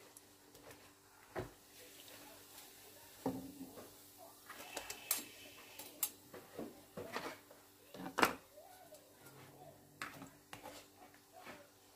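Metal slotted spatula and wire mesh strainer clinking and knocking against a frying pan while crackers are turned and lifted in hot oil: scattered sharp knocks, the loudest about eight seconds in, over a faint steady hum.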